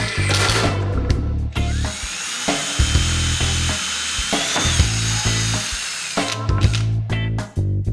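Cordless drill spinning up and boring a hole through a melamine-faced particleboard cabinet door. Its whine rises about a second and a half in, holds steady, and stops a little over six seconds in. Background music with a steady bass beat plays underneath.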